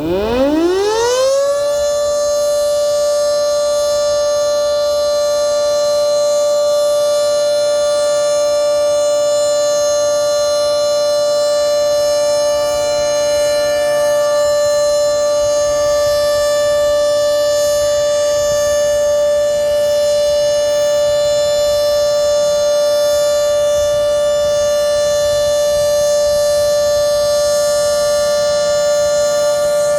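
Federal Signal 2T22B two-tone electromechanical siren with its top intake blocked, sounding the steady alert signal. It winds up with a rising pitch over about the first two seconds, then holds a steady chord of its two tones.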